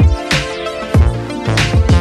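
Electronic background music with a steady beat: a deep kick drum under sustained synth chords.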